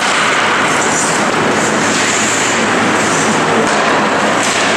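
Ice hockey rink sound: a loud, steady rushing noise of play on the ice, with brief hissing scrapes of skates on the ice about a second in, around two seconds and around three seconds.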